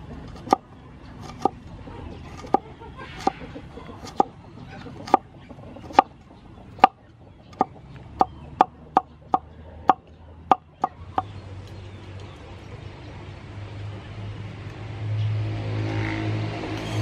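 Cleaver chopping carrot on a wooden cutting board: sharp knocks of the blade on the board, about one a second at first, then quicker, about three a second, stopping about two-thirds of the way through. After the chopping a low steady hum grows louder toward the end.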